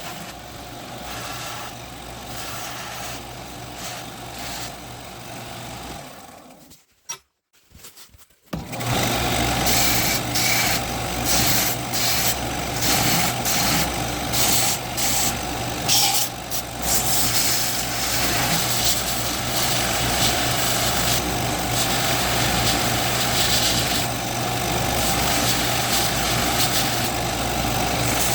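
A steady machine hum with a constant low tone. It cuts out briefly about seven seconds in and comes back louder, with irregular sharp clicks over it for a while afterwards.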